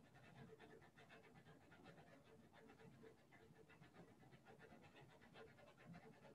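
Near silence, with a faint rhythmic pulsing whoosh from a ceiling fan running in the room.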